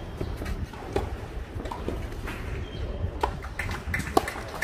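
Tennis ball being bounced on a clay court by the server before a serve: a few short, dull knocks spaced unevenly, the loudest near the end, over a low steady rumble.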